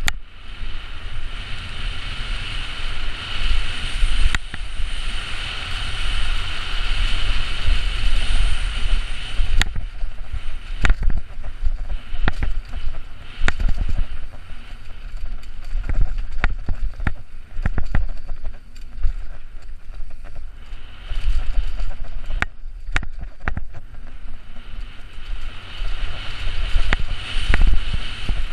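Downhill mountain bike run heard from a helmet camera: wind buffeting the microphone and tyres rolling over a dirt trail, a steady rush for the first nine seconds or so, then frequent sharp clatters and knocks as the bike hits roots and rocks.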